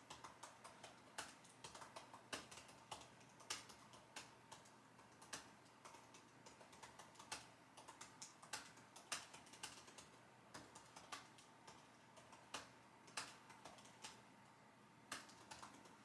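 Typing on a computer keyboard: soft, irregular key clicks at a steady working pace, some keystrokes louder than others.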